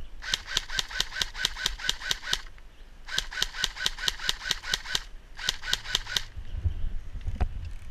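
Airsoft gun firing three rapid strings of shots, about six shots a second, with short pauses between strings and the last string shorter. A single louder thump comes near the end.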